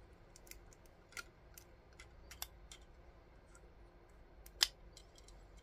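Light clicks and taps of LEGO plastic pieces being handled as a minifigure is fitted into a vehicle's cab under its hinged canopy, with one sharper click about four and a half seconds in.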